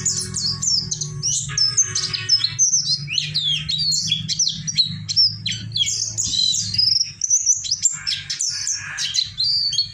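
Small songbird singing a fast, varied twittering 'kiriwik' song of high chirps and quick rising and falling whistles, a recording of the kind played as a master song for captive songbirds to copy. A steady low hum runs underneath.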